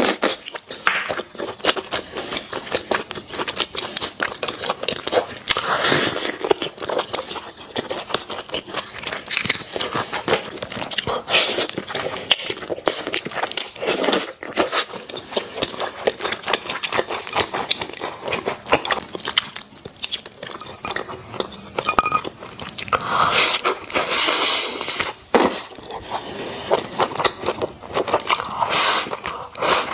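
Close-miked eating: a person biting into and chewing saucy braised beef rib meat and rice, a continuous run of wet, sticky mouth clicks with now and then a louder bite.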